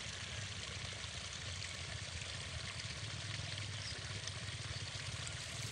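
Motorcycle engine running at a distance and slowly getting closer, under a steady rushing hiss.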